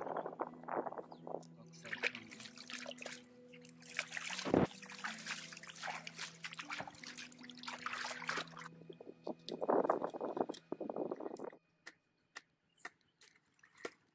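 Hand splashing and sloshing in shallow muddy water, in uneven bursts, with a single knock about four and a half seconds in; the splashing stops about twelve seconds in, leaving only a few faint clicks.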